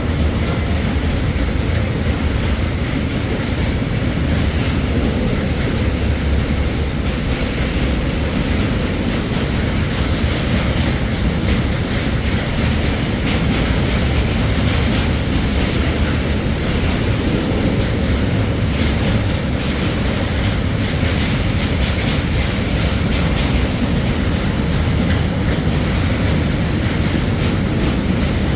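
Train running on the track: a loud, steady low noise from the moving train, with faint wheel clicks over rail joints through the middle.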